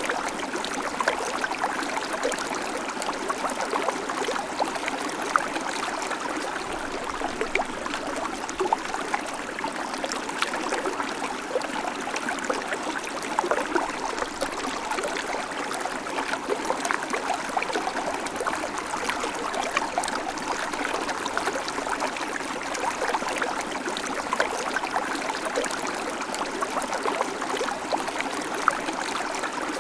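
Babbling creek: shallow water running and splashing steadily, full of small gurgles and plinks.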